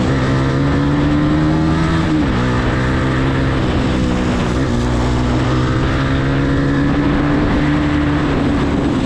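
Yamaha R15 motorcycle's single-cylinder four-stroke engine pulling under throttle, its pitch climbing and then dropping sharply about two seconds in as it shifts up, dipping briefly again near the middle, then slowly rising, with a steady rush of wind noise.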